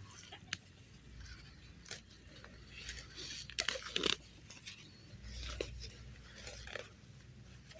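Close rustling and crunching of plants being handled during a garden harvest, with a cluster of sharp crackles and snaps about three and a half to four seconds in.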